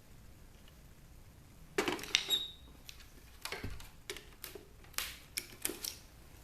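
Small hard plastic and metal parts of a disassembled DVD player being handled and set down: a scattered series of clicks and knocks starting about two seconds in, with a brief squeak among the first ones.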